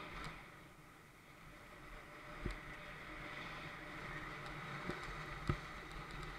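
Mountain bike rolling fast over a dirt singletrack: steady tyre-on-dirt and wind rush on the bike-mounted action camera, with a few thumps as the bike hits bumps, the loudest about five and a half seconds in.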